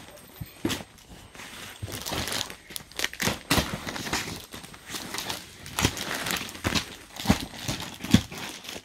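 Suit catalogues and fabric being handled: irregular rustling and crinkling with soft knocks and taps as pieces are picked up and moved.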